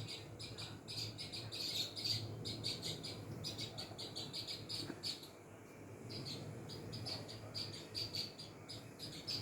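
A flock of house sparrows chirping: rapid, overlapping high chirps, several a second, with a brief lull about halfway through.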